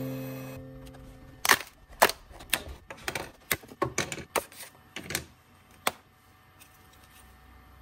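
3D-printed PLA cookie cutters popping off a flexed spring-steel printer build plate: about a dozen sharp clicks and snaps over some four seconds as the parts release.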